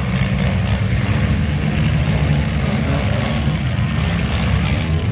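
Engines of several stock compact demolition derby cars running and revving together, a dense steady rumble with no single crash standing out.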